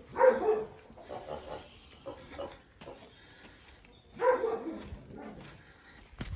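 Sparrowhawk calling in distress while held in the hand: two loud calls, one at the start and one about four seconds in, with quieter sounds between.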